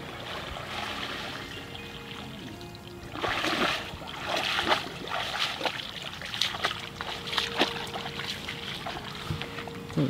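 Water sloshing and splashing as a woven bamboo basket is scooped through shallow weedy water and lifted out, with water pouring and dripping through it from about three seconds in until near the end. Soft background music with held notes runs underneath.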